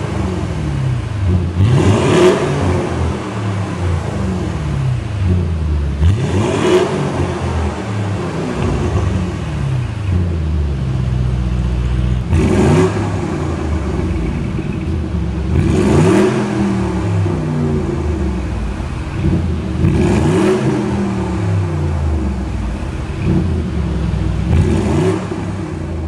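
Audi RSQ8's twin-turbo V8 exhaust with particulate-filter-deleted downpipes, idling and revved in six sharp blips, each climbing quickly and falling back to idle.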